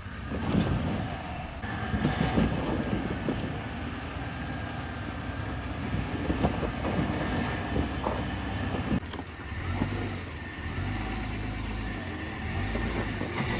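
Off-road vehicle driving slowly over a rough trail: a low rumble with irregular knocks and clunks from the body and suspension.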